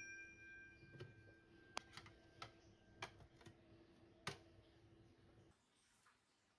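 Near silence: a piano note from the background music dies away, a handful of faint scattered ticks follow, and the sound drops to complete silence near the end.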